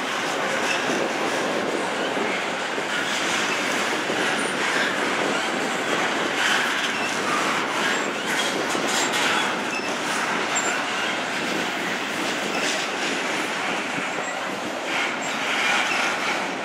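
Double-stack intermodal container cars rolling past on steel wheels: a steady rumbling rush of wheels on rail.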